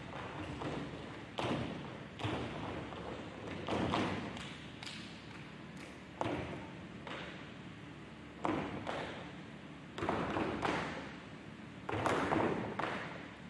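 Tap shoes of four dancers striking the stage floor in a tap routine: runs of quick taps and heavier stamps, with the loudest clusters coming every second or two.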